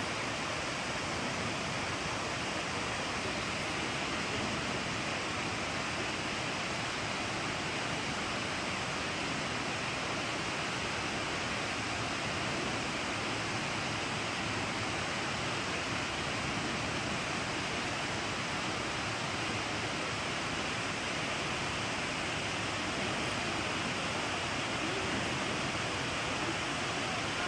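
Steady, unbroken rush of a large waterfall on the Genesee River, the noise of falling water heard close to the falls.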